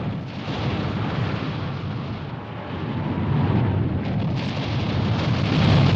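Rushing, rumbling storm noise of wind and heavy sea, surging in waves and swelling to its loudest near the end.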